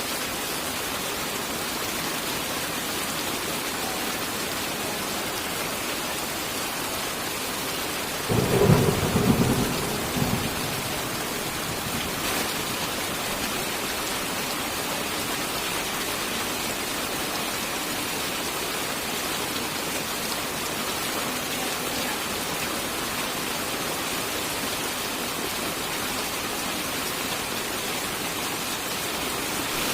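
Steady rain falling, an even hiss, with one thunderclap about eight seconds in that rumbles low for about two seconds before the rain carries on alone.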